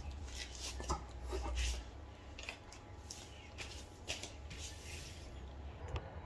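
Hands handling small carburettor parts: scattered light clicks and rubbing over a low rumble.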